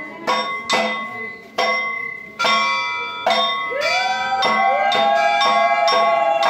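Temple bells struck over and over, each stroke ringing on and fading, about two strokes a second. From about four seconds in, a long held tone that bends upward at its start joins the bells and keeps sounding.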